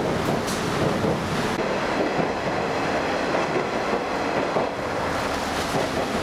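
Kazekko open-air diesel railcar running along the track: a steady rumble and rushing noise at an even level.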